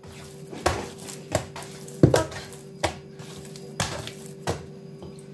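Soft sfenj yeast dough being beaten by hand in a wooden bowl: six slaps, about one every three quarters of a second, over a faint steady hum.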